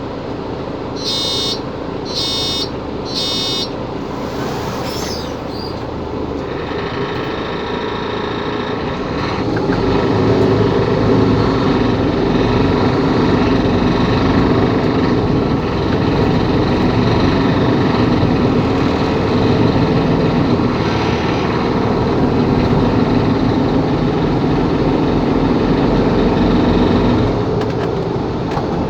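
Mercedes-Benz Capacity L articulated city bus, heard on board: three short electronic warning beeps in the first few seconds, then the diesel engine grows louder about nine seconds in as the bus pulls away, and runs steadily under load.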